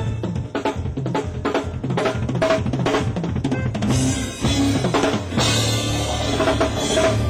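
Live band playing: a drum kit keeps a busy groove of kick and snare hits under full, sustained keyboard chords.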